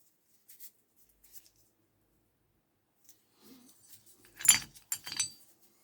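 Small metal tools or parts being handled on a workbench: a few faint ticks, then two sharp metallic clatters about three-quarters of a second apart, the first the louder, with a brief ring.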